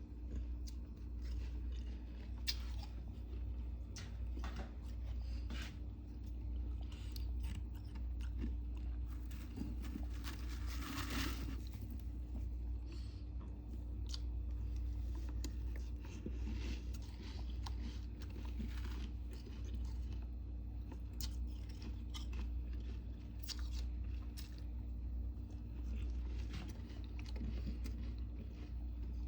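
A person biting and chewing soft, powdery freezer frost, with irregular soft crunches and one longer, denser crunch about ten seconds in. A steady low hum runs underneath.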